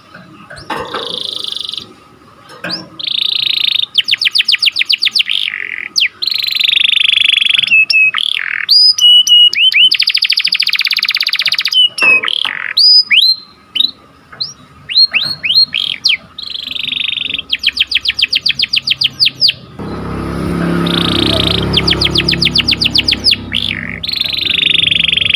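Domestic canary singing: phrases of sharp, fast rolling trills alternating with buzzy chatter and short rising chirps. A rushing noise sits under the song for the last few seconds.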